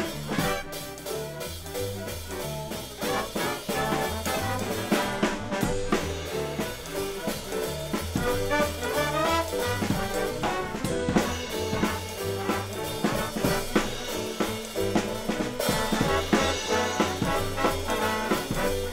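Swing jazz band music, with horns, piano and drum kit playing together over a moving bass line.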